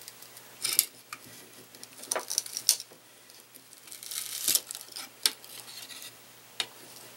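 Flat-blade screwdriver prying a plasma display glass up off its circuit board: a series of short clicks and scrapes of the metal blade against the glass and board, with a longer scrape near the middle.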